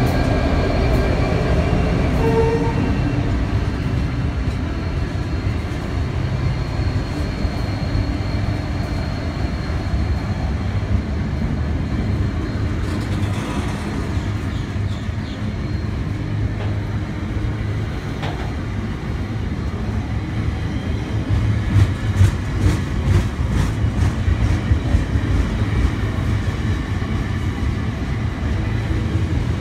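A long freight train passing close by. A diesel locomotive engine is heard at first, then a line of box wagons rolls past with a steady low rumble of wheels on rail. In the last third, sharp, regular clacks of the wheels over rail joints come through louder.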